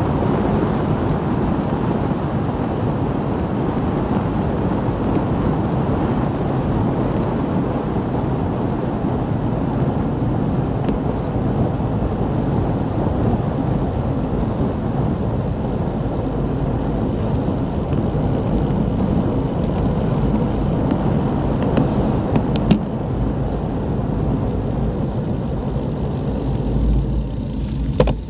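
Steady wind rushing over the microphone of a camera on a moving bicycle, with a few faint clicks a little past the middle; the noise drops off suddenly at the very end.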